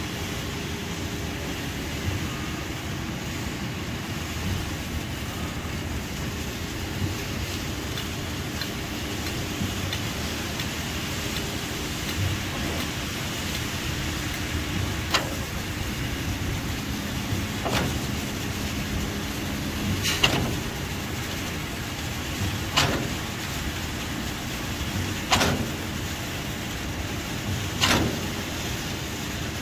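Heavy construction machinery running steadily with a low rumble. From about halfway through, a sharp knock recurs at an even pace, about once every two and a half seconds.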